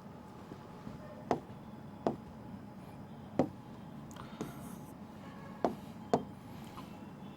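A pen writing on a hard surface: about five sharp taps spread over several seconds, with a short scratchy stroke in the middle.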